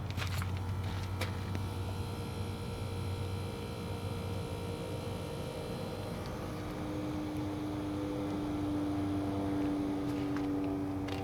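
HVAC condensing units running with a steady low hum of fans and compressors; there are a few clicks at the start, and a new steady hum sets in about six seconds in and grows a little louder.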